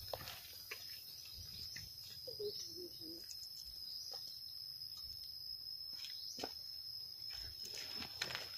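A steady, high-pitched insect drone from cicadas or crickets, with a few soft taps of footsteps on stone paving.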